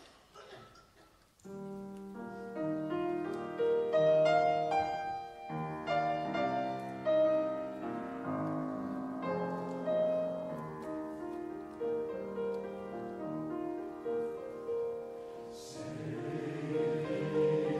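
Piano playing an introduction of struck notes and chords. About a second and a half from the end, a male voice choir draws breath and comes in singing over it.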